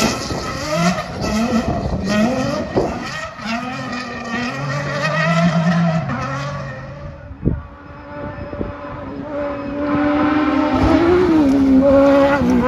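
Off-road rally car engine revving hard, its pitch climbing and dropping through gear changes. A sharp knock comes about seven and a half seconds in, then an engine grows loud again and is loudest near the end.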